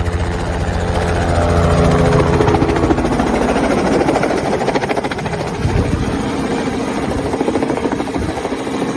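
A loud engine running steadily with a fast, even pulsing beat.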